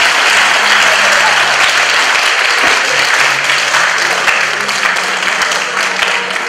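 Audience applauding, loud and steady, easing off slightly near the end.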